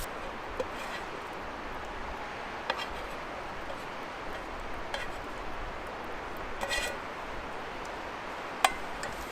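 Camp cooking utensils and dishes clinking and tapping a handful of times, the sharpest tap near the end, over a steady outdoor hiss.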